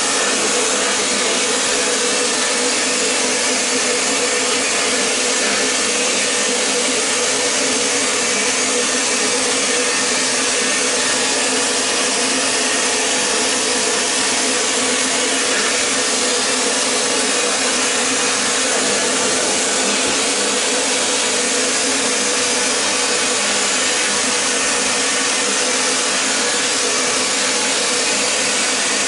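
Vapor blasting (wet blasting) gun spraying a water-and-abrasive slurry with compressed air onto an aluminium motorcycle cylinder head inside the blast cabinet, a steady hiss that stays the same throughout, stripping off old carbon.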